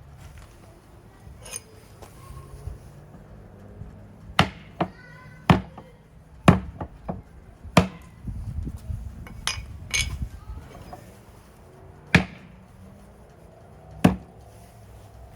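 A series of sharp, irregular knocks on a hard surface, about ten in all, spaced unevenly. One early knock is followed by a brief ringing clink.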